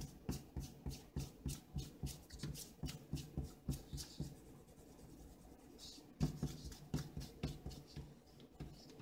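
Rubber eraser scrubbing back and forth on drawing paper to rub out pencil guidelines, in quick strokes about three to four a second. The strokes ease off for a couple of seconds in the middle, then start again.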